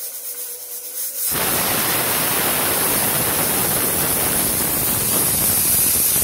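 Stovetop pressure cooker whistling: a soft hiss of steam at the weight valve, then about a second in a loud, steady rush of steam as the weight lifts. It is the one whistle the cook waits for, the cue to turn off the heat.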